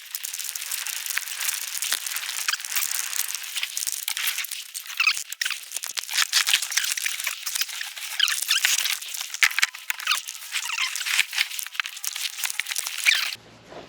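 Outdoor wildlife chorus: a dense, high-pitched hiss full of quick chirps and squeaks, with nothing in the low range, cutting off suddenly near the end.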